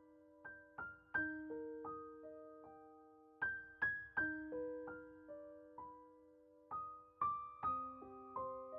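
Background music: a slow, gentle piano-like melody of single notes that ring and fade.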